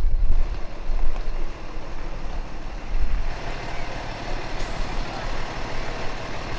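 Diesel engine of a truck towing a boat trailer, running as the rig moves slowly, with a steady low rumble. A brief high hiss comes about four and a half seconds in.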